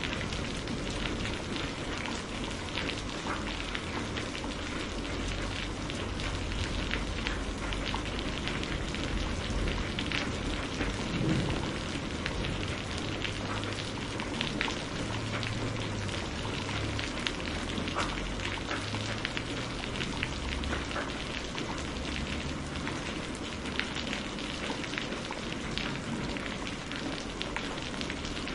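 Steady rain falling, a constant hiss with many individual drops ticking through it.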